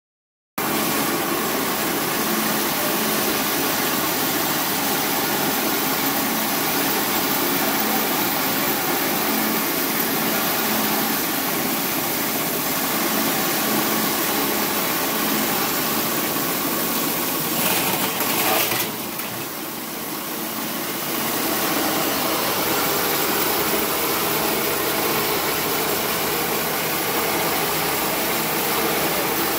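Small electric rice milling machine running with a steady, dense mechanical noise as paddy is milled. It dips briefly about two-thirds of the way through.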